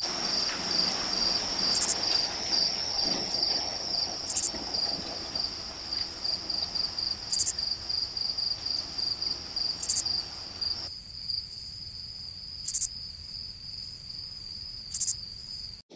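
Crickets chirping in a steady pulsing trill, with a sharp click every few seconds; the low background hum drops away about two-thirds of the way through.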